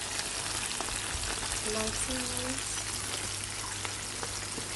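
Coated chicken pieces frying in hot oil in a pan: a steady sizzle full of small crackles.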